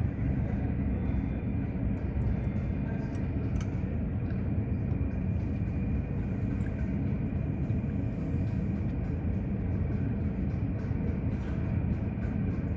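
Steady low rumble of airport apron noise from jet aircraft and ground equipment, with a few faint clicks.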